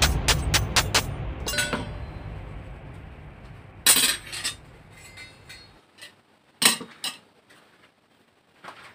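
Hand hammer tapping a spring-steel sickle blade against a steel anvil post: a quick run of light metallic clinks in the first two seconds, then a few separate steel-on-steel clinks as the blade and tongs are handled and set down. Background music fades out over the first half.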